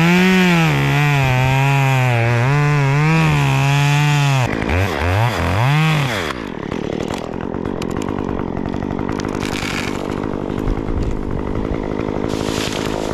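Stihl chainsaw running at full throttle with its pitch wavering as it works through the wood. It is then blipped twice and drops to idle about six seconds in.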